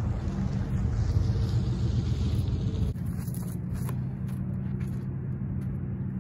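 Steady low rumble of wind buffeting the microphone in an open field, changing abruptly about three seconds in, with a few faint taps after that.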